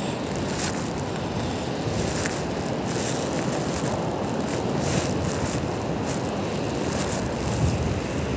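Steady rushing noise of wind buffeting a phone microphone, mixed with surf.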